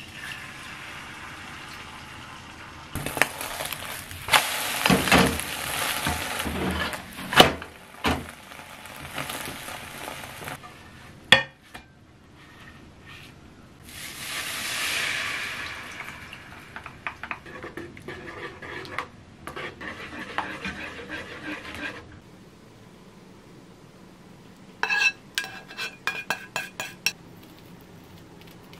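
Egg frying in sesame oil in a frying pan, sizzling loudly with spatula scrapes and knocks. Later a hiss swells as sauce is poured into the hot pan and stirred. Near the end comes a quick run of clinks as a spatula scrapes the thickened sauce out of the tilted pan onto a plate.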